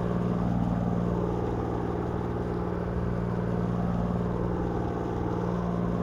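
Steady low hum of a fishing party boat's engine machinery running while the boat lies at anchor, unchanging throughout.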